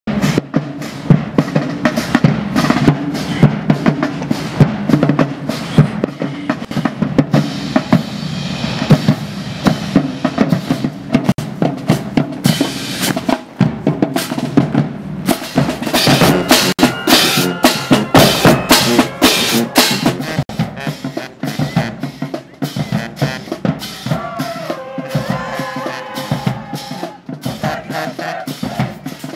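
Marching band playing: snare and bass drums beat out a fast, dense rhythm, with brass horns coming in on held notes late on.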